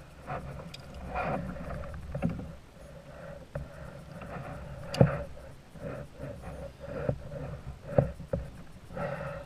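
Scattered knocks and bumps in a small fishing boat over a steady background noise, the loudest about five seconds in and another near eight seconds.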